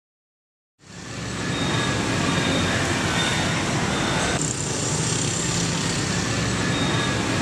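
Steady street traffic noise that fades in about a second in and keeps on evenly, its tone shifting a little about halfway through.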